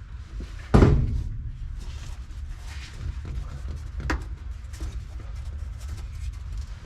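A heavy thump with a short ringing decay about a second in, then a sharp knock near the middle, over a steady low rumble: handling knocks from working weatherstripping onto a pickup's steel door opening.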